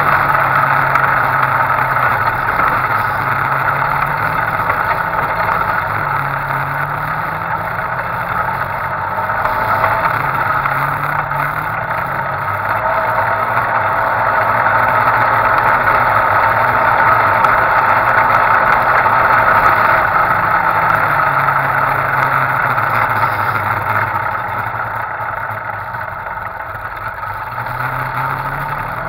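Engine of a side-by-side off-road vehicle running while it drives across sand, its pitch rising and falling repeatedly as the throttle is worked.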